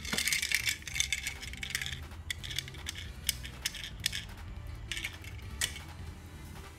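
Toy cars clattering and clinking against each other as a hand rummages through a cardboard box of them. A dense run of clicks in the first two seconds gives way to scattered single knocks.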